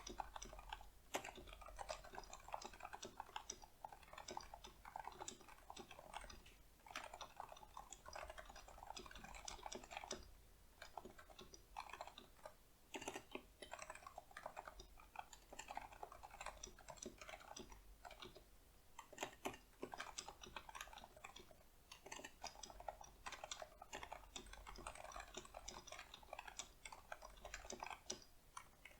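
Quiet, continuous typing on a Leopold FC660C keyboard with Topre Silent 45g switches and dye-sub PBT keycaps. The keystrokes come in rapid soft clicks, broken by a few short pauses.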